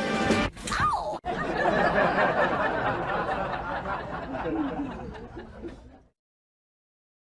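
A short falling call, then a jumble of people laughing and chattering for several seconds that fades and cuts to silence about six seconds in.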